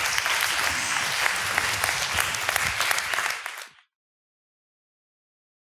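Audience applauding, a dense patter of many hands clapping that fades out about three and a half seconds in.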